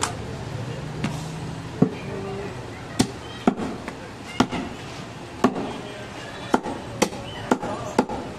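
Heavy butcher's cleaver chopping through goat ribs on a wooden stump block: about ten sharp chops at uneven intervals, coming quicker toward the end.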